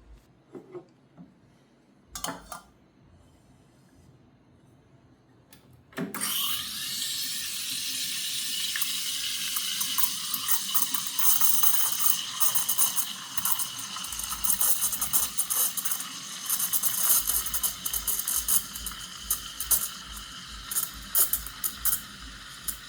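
A few light clicks, then the Gemilai 3145's steam wand comes on suddenly with a loud hiss. It carries on steaming, with crackling and spitting as it stretches milk.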